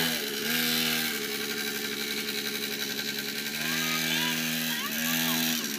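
Small dirt bike's engine running and revving up and down as the rider opens and eases the throttle, its pitch dipping and climbing again several times.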